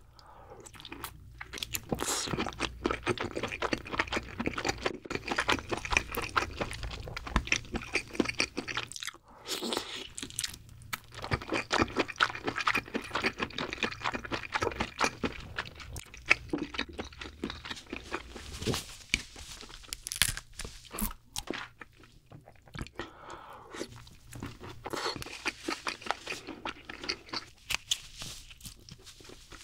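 Close-miked chewing of king crab leg meat coated in cheese sauce, a dense run of small wet mouth clicks.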